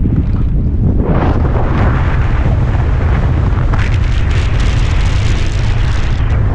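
Wind buffeting a helmet-camera microphone during a fast downhill mountain-bike descent, a steady heavy rumble. From about a second in it is joined by a loud hiss and crunching rattle of knobby tyres rolling over dirt and gravel.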